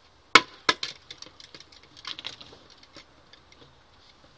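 Handling noises: a few sharp clicks in the first second, the loudest about a third of a second in, then scattered light ticks and rustles of things being moved about.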